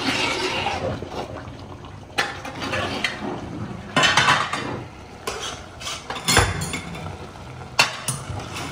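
Long metal ladle stirring thick soup in a large aluminium pot, scraping and knocking against the pot's sides with a sharper clink every couple of seconds.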